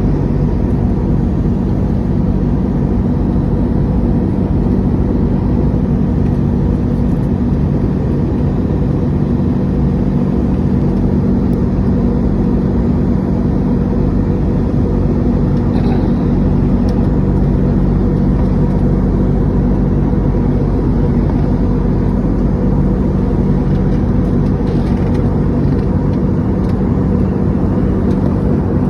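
Steady airliner cabin noise in flight: engine drone and rushing airflow with a constant low hum, unchanging throughout.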